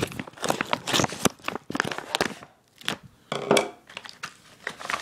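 Clear plastic packaging crinkling and crackling as it is handled and pulled open, in irregular bursts with a short pause near the middle.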